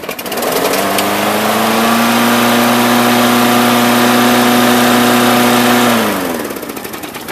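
A John Deere push mower's 6.5 hp Briggs & Stratton Intech engine cold-starting on the first pull after winter storage: it catches at once and runs up to speed. It runs steadily for a few seconds, then is shut off and winds down near the end.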